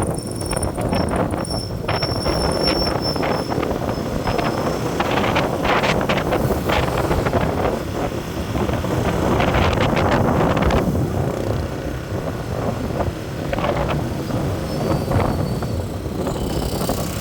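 Road vehicle driving along, with wind buffeting the microphone and irregular knocks and rattles through the steady road noise.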